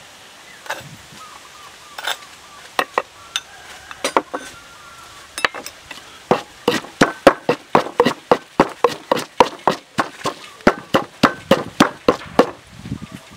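Wooden pestle pounding chili and herbs in a wooden mortar for a chili sauce. A few scattered taps and knocks at first, then steady rapid pounding, about three or four strikes a second, from about halfway in.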